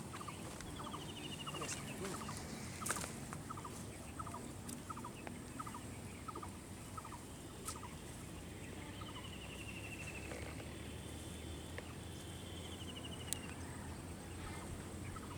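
Birds calling: a short call repeated about twice a second, with several rapid falling trills over it, and a few faint clicks.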